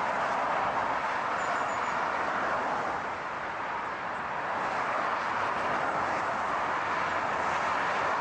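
Steady road noise of a car driving: an even hiss with no distinct engine note, easing slightly about three seconds in.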